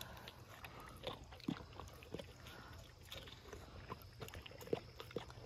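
Great Dane puppy biting and chewing a chunk of juicy watermelon held out in a hand: an irregular run of wet crunches and smacks.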